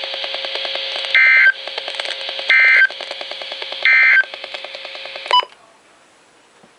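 Midland WR100 weather radio sounding the NOAA Weather Radio end-of-message data signal: three short warbling data bursts a little over a second apart, over steady buzzy broadcast static. The audio cuts off with a click a little past five seconds in as the radio mutes at the end of the alert.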